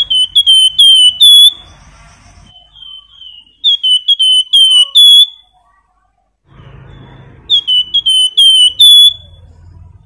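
Flamboyan (Javan fulvetta) singing in a cage: three loud phrases a few seconds apart, each a quick run of about five clear, falling whistled notes ending on a longer held note.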